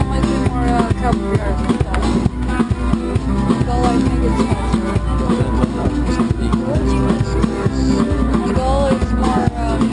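A street band playing music with a steady drum beat.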